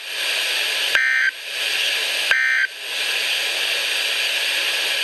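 A NOAA Weather Radio receiver sounds the Emergency Alert System end-of-message signal. Two short, buzzy digital data bursts come about 1.4 s apart, over a steady radio static hiss. They mark the end of the severe thunderstorm warning broadcast.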